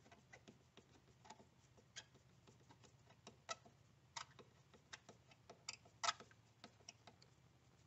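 Faint, irregular clicks and ticks of a screwdriver turning the screw of the hose clamp on the intake air duct at the throttle body, with a few louder clicks in the second half.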